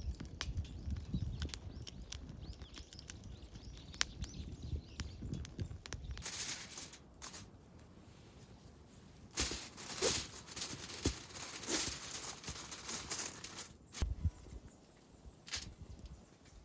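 Camp gear being handled: rustling, crinkling and tearing sounds with scattered knocks and clicks, loudest and busiest in the middle, over low wind rumble at the start.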